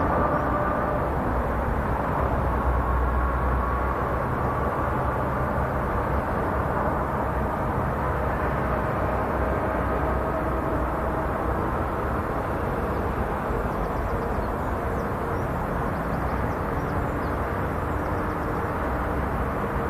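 Compact tractor engine running steadily under load as it pulls a plough through the soil, a constant hum with a few faint held tones that shift slightly in pitch.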